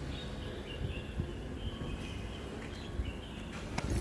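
Steady outdoor street background noise with light thumps from walking and a few faint high chirps.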